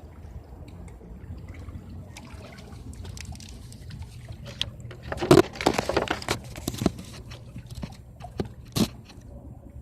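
Water sloshing and splashing over a steady low rumble. A run of clattering knocks comes around the middle, and one sharp knock near the end.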